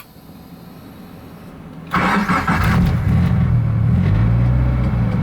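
Turbocharged Scion FR-S's flat-four engine cranking and firing up about two seconds in, then settling into a steady idle.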